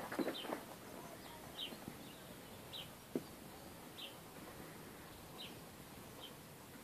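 A small bird repeats a short, high chirp that slides down, roughly once a second, over a quiet background. At the start, bamboo leaves rustle and crackle against the handheld camera, and there is a single sharp click about three seconds in.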